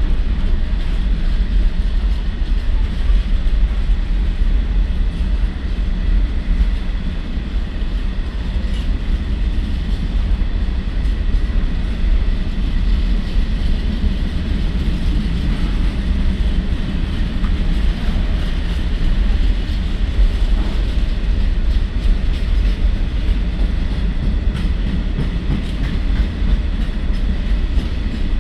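Container freight train's flat wagons rolling past: a steady, unbroken noise of steel wheels running on the rails.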